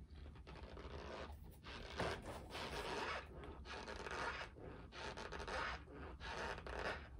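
Close mouth sounds of someone chewing a mouthful of dry cornstarch powder: gritty, scratchy chews that come in an irregular run with short pauses between them, over a steady low background rumble.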